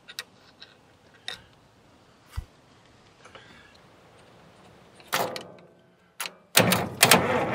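A screwdriver clicks against the starter solenoid terminals of a Caterpillar D4D dozer a few times. From about five seconds in a loud, dense crackling clatter sets in and keeps going as the terminals are bridged, in a test for contact to make the starter turn.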